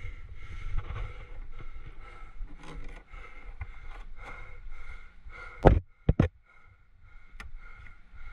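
Wind rumbling on the microphone as a climber hand-jams up a crack, with light scuffs. A little past halfway there is one loud knock, then two quick knocks.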